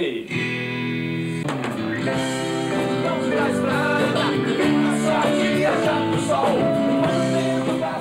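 Live acoustic rock band playing: acoustic guitars, acoustic bass and drums, with a male voice singing.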